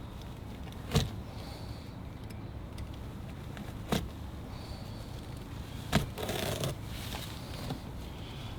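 Interior parts of a car being dismantled by hand: three sharp knocks a few seconds apart, the last followed by a short scraping rustle, over a steady low hum.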